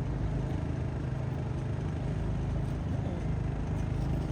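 A steady low engine rumble, even throughout, like an idling motor.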